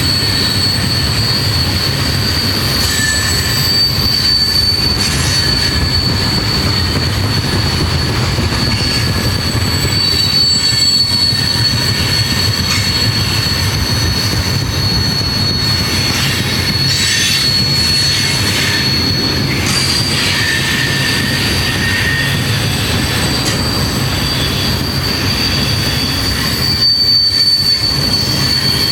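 Canadian National freight train rolling past, its steel wheels squealing with a steady high-pitched whine over the continuous low rumble of the cars.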